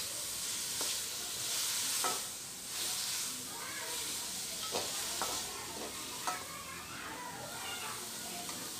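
Shredded cabbage, carrot and capsicum sizzling in a hot metal karahi while a metal slotted spatula stirs and scrapes through them. There are sharp clinks of the spatula against the pan every second or so.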